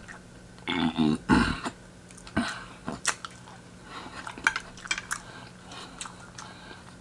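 A person chewing fried chicken close to the microphone, with wet mouth clicks and smacks. A louder bite or chew comes about a second in.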